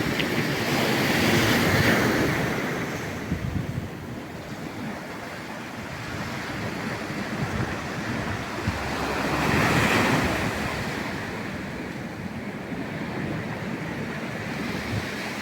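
Black Sea surf: waves breaking and washing on the shore, swelling twice, over the first few seconds and again about ten seconds in.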